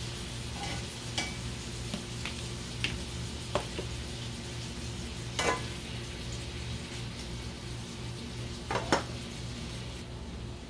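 Chicken pieces sizzling as they fry in a cast-iron skillet, with a handful of sharp clinks of kitchenware, the loudest about five and nine seconds in.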